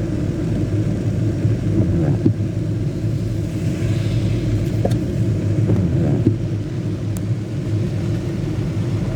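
Heavy, nonstop rain pouring down, heard as a loud steady low rumble with a few faint clicks of drops.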